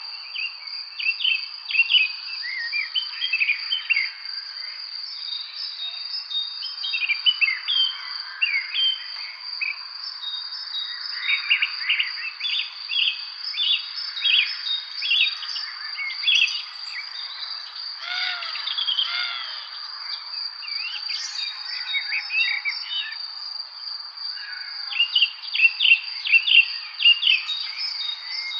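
Songbirds chirping and singing in quick, repeated phrases over a steady, high-pitched insect drone, with a busy run of chirps near the end.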